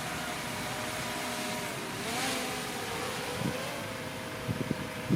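Diesel engine of heavy earthmoving machinery running steadily; about two seconds in its pitch briefly dips and recovers, with a short rush of noise, as if it took load. A few short knocks follow near the end.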